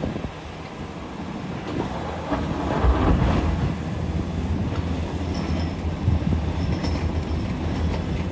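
A 50-ton SANY SY500H excavator's diesel engine running under load with a steady low rumble, and a burst of grinding and clattering about three seconds in.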